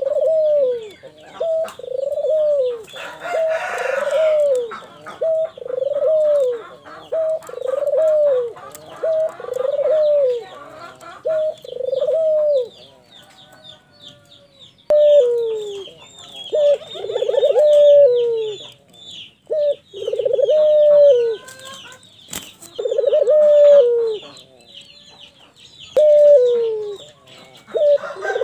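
Ringneck dove (puter) cooing: a steady run of short arched coos about one a second, then after a brief pause a slower series of coos, some with a rolling trill. Faint high chirping of small birds runs underneath.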